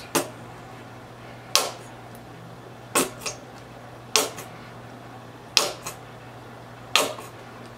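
A plastic conditioner bottle squeezed and jerked upside down to get conditioner onto a spoon: about seven sharp plastic clacks, roughly one every second and a half.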